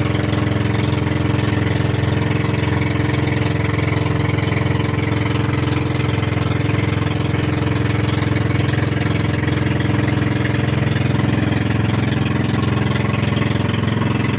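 Fishing boat's engine running steadily underway, a constant drone that holds one speed throughout, with a steady hiss over it.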